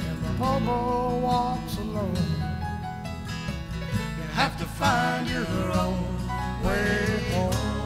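Instrumental country-folk music: acoustic guitar under a wandering melody line, with no singing.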